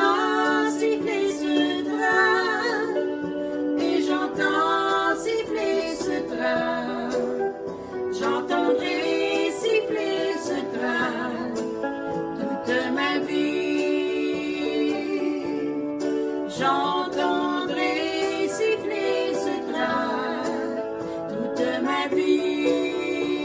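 Two women singing a calm French song together, their voices wavering with vibrato over steady instrumental accompaniment.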